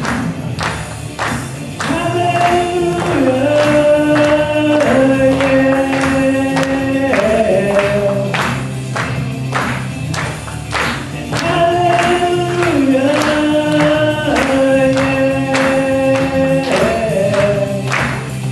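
Live worship song: singing voices hold long notes in two similar phrases over a band accompaniment with a steady beat.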